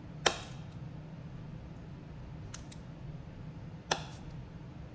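Kitchen knife slicing through a stick of butter and knocking on a wooden cutting board: a sharp knock just after the start and another near the end, with two faint taps between, over a steady low hum.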